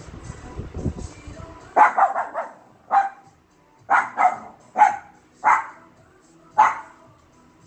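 Shih Tzu barking close by: a quick run of sharp barks about two seconds in, then single barks roughly once a second.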